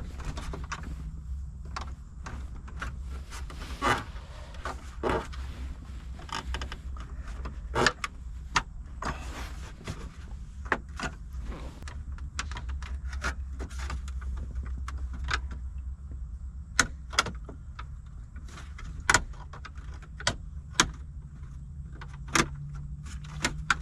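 Irregular sharp clicks and knocks of plastic dash trim and tools being handled while a Jeep Wrangler's dash panel is worked loose, over a steady low hum.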